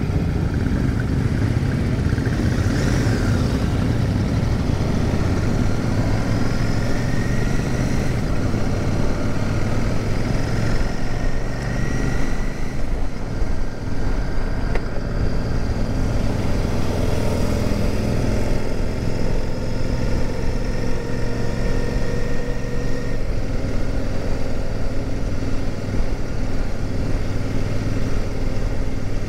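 Royal Enfield Super Meteor 650's 648 cc parallel-twin engine running steadily under way, heard from the rider's seat, its note drifting gently up and down with the throttle. Other motorcycles in the group ride close by.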